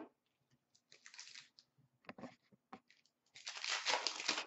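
Hockey card pack wrapper crinkling as it is handled, with a few light clicks of cards, then a denser, louder stretch of crackling about three and a half seconds in as the pack is torn open.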